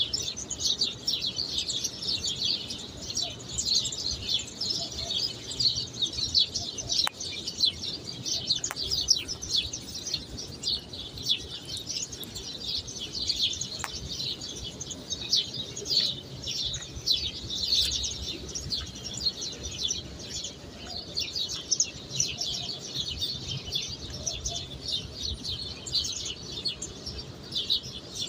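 A dense chorus of many small birds chirping without pause, high-pitched.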